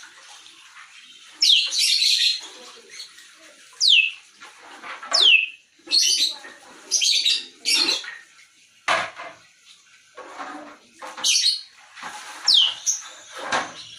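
Grey parrot calling in a run of short separate calls, harsh squawks mixed with quick whistles that sweep down in pitch.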